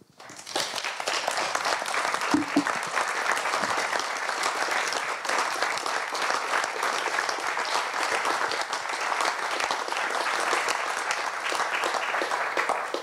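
Audience applauding, rising quickly about half a second in, holding steady, and dying away at the very end.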